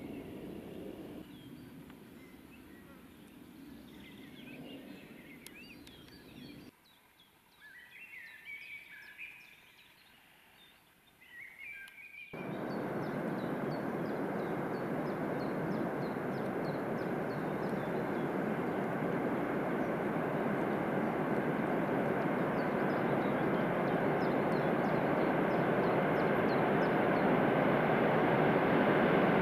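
Birds chirping faintly in quiet woods. About twelve seconds in, this gives way to the steady rumble of an approaching 2TE25KM diesel locomotive with a train of tank cars, growing louder as it nears.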